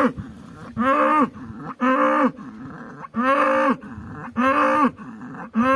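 A bull letting out short, repeated bellows, five in a row about a second apart, each a brief steady-pitched call. The animal is agitated and angry.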